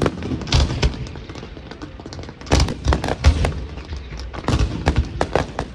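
Fireworks display: aerial shells bursting in irregular volleys of sharp bangs and deeper booms. The loudest cluster comes about two and a half to three and a half seconds in, with a quick run of sharp reports near the end.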